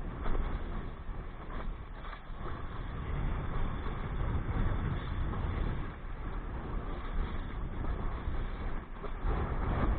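Strong wind buffeting the microphone in an uneven, gusting rumble while sailing on a jangada raft.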